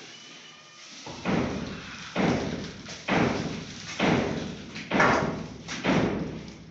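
Stone being knocked down into place during stone laying: a series of heavy thuds, about one a second, starting about a second in.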